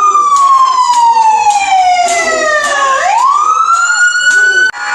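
Police car sirens wailing loudly together. The main tone slides slowly down in pitch for about three seconds, then sweeps quickly back up, with other sirens pulsing underneath. The sound changes abruptly just before the end.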